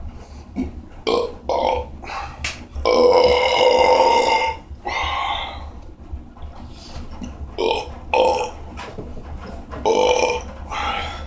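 A series of loud belches: a few short ones, then one long drawn-out belch lasting nearly two seconds about three seconds in, followed by more short belches.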